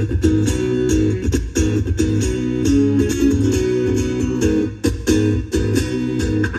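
Background music: a plucked guitar over a bass line and a steady beat.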